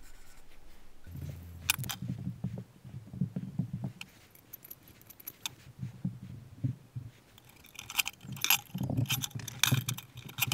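Sheet steel and small marking tools handled on a workbench: light metallic clinks, taps and scrapes in short irregular bursts, busiest near the end.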